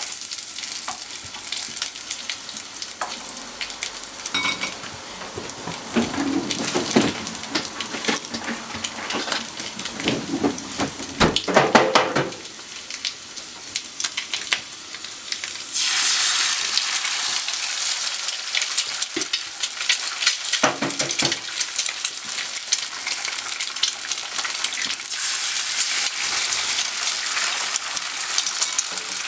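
Small red sausages sizzling in oil in a frying pan and being turned with chopsticks. Just past the halfway point the sizzle suddenly grows louder and brighter as eggs go into the hot oil to fry.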